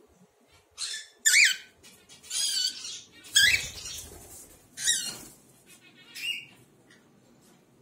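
Cockatiels calling: about six short, squeaky chirps with quick pitch glides, the loudest around the middle, with a dull thump about three and a half seconds in.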